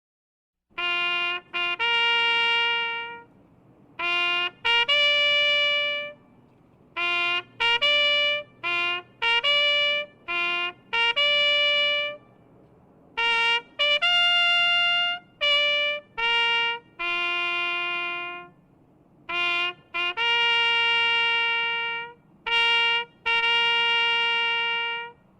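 Solo trumpet playing a fanfare: phrases of short, detached notes leading into long held notes, with brief pauses between the phrases.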